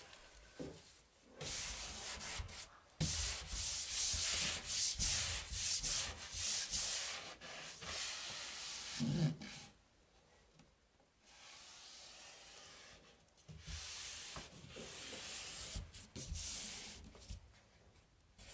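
Repeated rubbing and swishing strokes as Wallrock thermal liner paper is smoothed and pressed flat onto the wall along a butted joint. The strokes run for several seconds, pause briefly about two-thirds of the way in, then start again.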